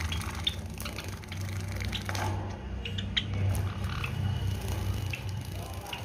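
Java sparrows bathing in a cage water cup: water splashing and fluttering, with scattered short high chip calls, over a steady low hum.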